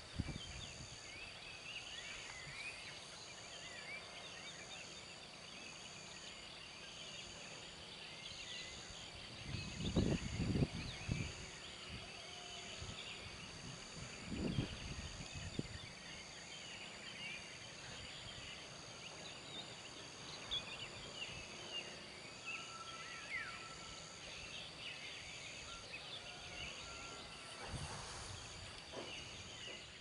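Rural outdoor ambience: many short bird chirps, a steady high whine and a high pulse repeating a little under once a second. Brief low rumbles about ten and fourteen seconds in are the loudest sounds.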